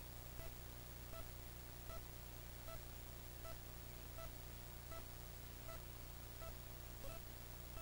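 Short electronic beeps repeating evenly, about every three-quarters of a second, over a steady low hum.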